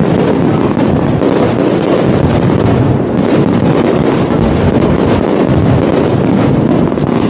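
Fireworks display firing a dense, continuous barrage: many bangs and crackles run together into a loud, steady din with no breaks.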